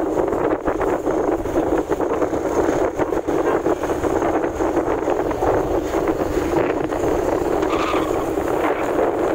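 Wind buffeting the microphone on a moving motorcycle, a steady rushing roar, with the bike's engine and road noise beneath it.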